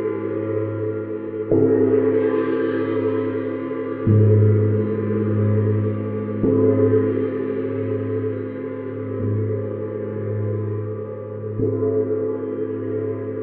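Neptune planet gong played with felt-headed mallets: five soft strokes, about one every two and a half seconds, each renewing a continuous ringing wash with a strong low hum that pulses slowly.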